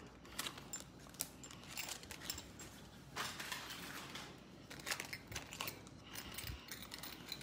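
Small metal earrings and their card backings being handled and sorted: a scatter of light clinks, clicks and rustles at irregular intervals.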